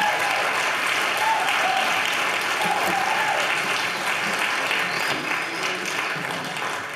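Live audience applauding and cheering with a few voices calling out at the close of a song, dying away near the end.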